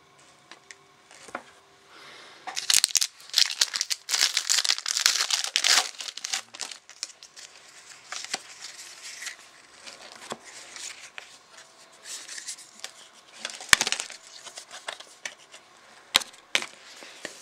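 Plastic wrapper of a trading-card pack torn open and crinkled, most heavily from about two and a half to six seconds in. After that come scattered crackles and a few sharp clicks.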